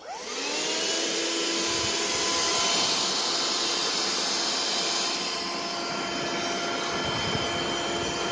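Vacuum cleaner switched on, its motor spinning up with a rising whine in the first half second, then running steadily with a whine over rushing air.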